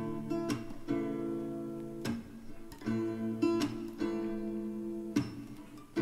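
Background music: an acoustic guitar strumming chords, with no singing.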